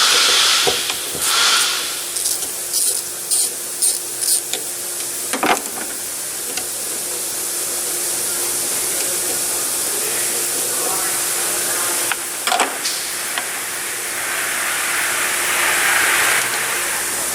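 EVAP smoke machine running with a steady hiss and faint hum, swelling louder near the start and again near the end. Light clicks and a single knock come from parts being handled.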